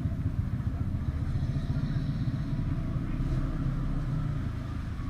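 Motorcycle engines idling steadily with a low rumble.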